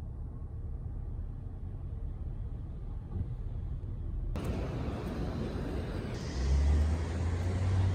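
City street traffic noise: a low, muffled rumble that opens up into fuller street noise about four seconds in, with a louder low engine hum from a vehicle for the last couple of seconds.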